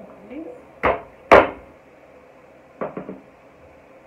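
Sharp knocks of things put down on a tabletop while food is prepared, among them a glass bottle set down: two loud knocks about a second in, the second the louder, then a softer cluster of knocks near three seconds.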